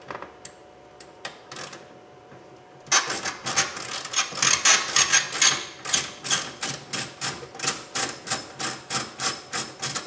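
Ratchet and 10 mm socket clicking as it backs out the inside door handle bolt. A few scattered clicks come first. About three seconds in, quick back-and-forth ratcheting strokes start and keep up at about three a second.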